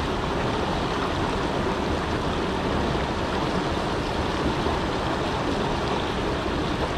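River water running with a steady, even rush.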